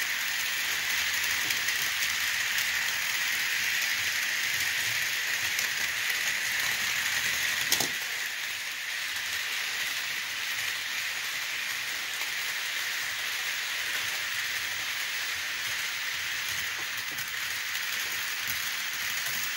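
Model train running on its track: a steady hiss with fine rapid clicking, and one sharp click about 8 seconds in.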